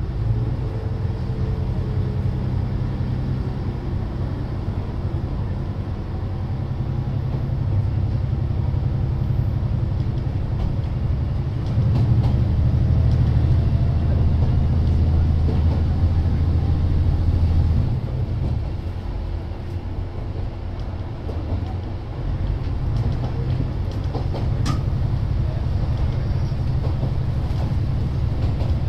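Isumi 200 class diesel railbus idling while standing in a station, a steady low engine rumble heard from inside the car. The rumble grows louder for about six seconds midway, then settles back, and there is a single sharp click near the end.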